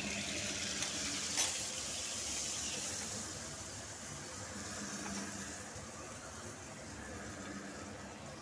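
Butter sizzling on a hot flat tawa griddle just after a spoonful is added. The sizzle is strongest at first and slowly dies down, with one short tap about a second and a half in.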